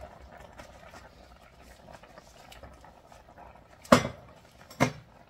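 Chicken broth simmering quietly in a steel wok with faint crackling, then two sharp knocks on the wok about a second apart near the end, as the wooden spatula and the wok are handled.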